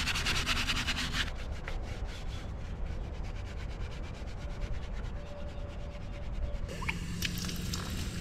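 A scrubbing pad rubbed hard over a dirty alloy wheel rim in quick, even back-and-forth strokes. Near the end, water from a hydrant starts splashing onto the wheel.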